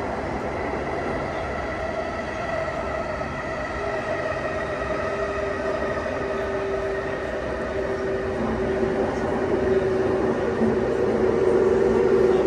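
E233-7000 series electric train running, heard from inside the car: wheel and track rumble with a traction-motor whine whose tones slowly fall in pitch.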